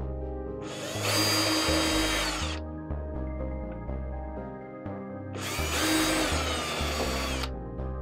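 Handheld power drill boring two pilot holes into the wooden headboard shelf, two runs of about two seconds each with a whine, over background music.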